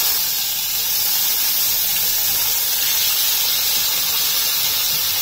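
Marinated hilsa fish steaks frying in a pan of shallow hot oil: a steady sizzling hiss while more steaks are laid in.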